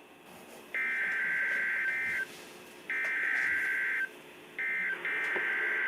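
Three EAS SAME digital header bursts from a NOAA Weather Radio broadcast. Each is a buzzy, rapidly warbling two-tone data burst lasting about a second and a half, with short gaps between them. The header marks the start of a new alert, here a severe thunderstorm warning.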